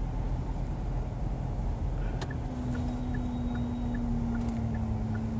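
Steady low rumble inside the cabin of a BAIC BJ40 L SUV, its engine and road noise. A steady low drone joins about halfway through and slowly sinks in pitch, over a faint, light ticking.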